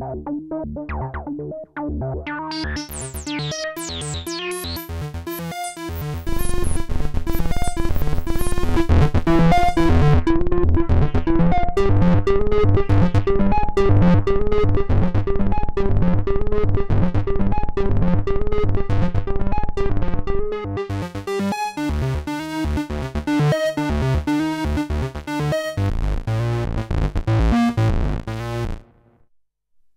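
Arturia MatrixBrute analog synthesizer playing a patch of fast-moving notes. A deep bass layer comes in about six seconds in and the sound gets louder. The texture thins out later and the sound stops shortly before the end.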